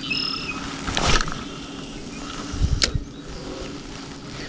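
A cast with a spinning rod and reel: a short whoosh about a second in, then low knocks and a sharp click near three seconds, over a faint steady hum.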